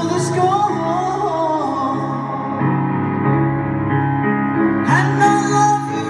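Woman singing a slow ballad live over grand piano chords, heard from the audience in an arena. One sung phrase comes near the start and another about five seconds in, with held piano chords between them.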